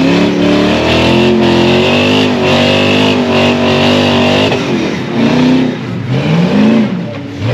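An off-road vehicle engine revs hard under load and holds high revs for about four and a half seconds. The revs then drop off, followed by two short throttle blips near the end.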